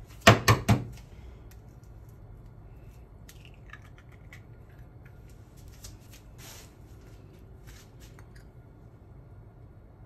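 A half-boiled egg's shell rapped three times in quick succession against a hard edge to crack it, followed by a few faint small clicks.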